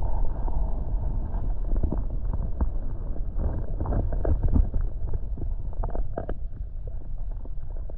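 Muffled underwater sound of a submerged camera in a tide pool: a steady low rumble of moving water, with scattered faint clicks and taps.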